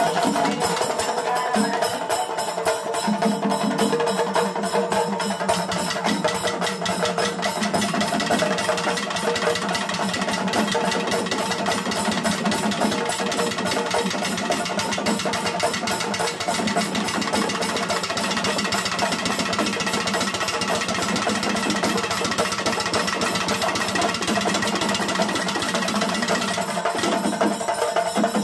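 Kerala chenda drums (Kerala kottu) played fast and continuously by a procession drum troupe, with steady pitched music over the drumming.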